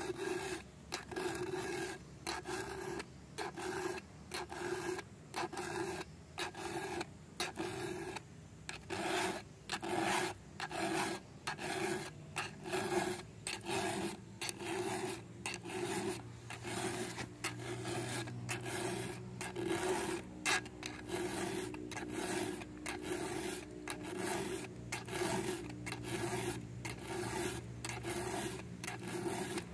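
Round file rasping across the cutters of a chainsaw chain in steady, even hand strokes, about three every two seconds, each stroke with a faint ring from the metal: hand-sharpening the saw chain.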